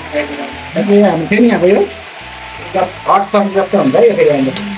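Pickle frying in hot oil in a small wok, sizzling steadily, with a person's voice in short pitched phrases louder over it.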